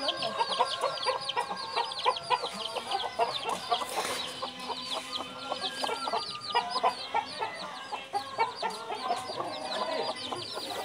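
A flock of hens clucking, over a constant chorus of short, high, falling chirps repeated many times a second.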